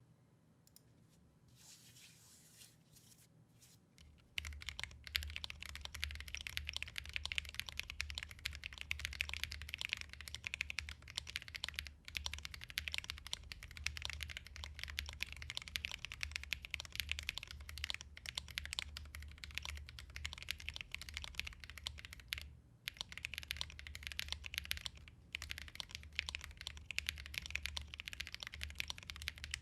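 Fast, steady typing on a Libra40 40% mechanical keyboard with lubed Holy Panda tactile switches on a stainless steel plate and PBT keycaps. The typing starts about four seconds in and stops briefly a few times.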